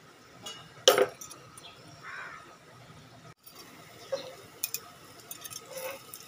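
Metal kitchen utensils clinking against a nonstick frying pan while fried potato slices are handled: one sharp clink about a second in, then a run of lighter clicks of tongs on the pan near the end.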